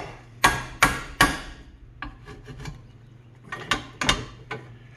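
Hammer striking the end of a screwdriver held against a control arm bushing shell, tapping in the factory stakes so the split shell can be driven out. Three sharp metal strikes in quick succession, a few light taps, then two or three more strikes near the end.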